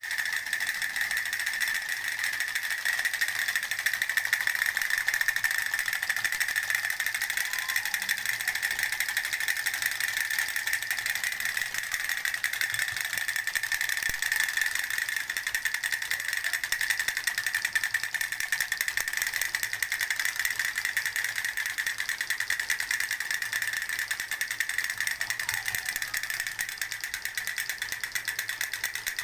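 Fast, steady mechanical rattle, a dense run of tiny clicks with a bright buzzing edge.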